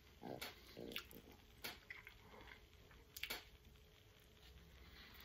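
Faint mouth sounds of a person slurping and chewing a mouthful of instant ramen noodles, with a few sharp smacks, the loudest about three seconds in.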